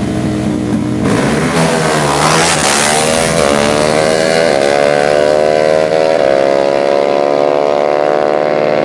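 Drag-racing ATV engines revving, then launching hard about a second in and pulling through several gear changes, the pitch climbing and dipping briefly at each shift.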